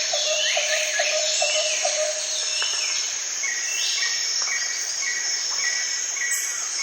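Jungle ambience sound effect: a steady high insect buzz under repeated falling bird whistles. A low pulsed call repeats about three times a second, stops about a second in and returns near the end, and a run of short even chirps comes in the second half.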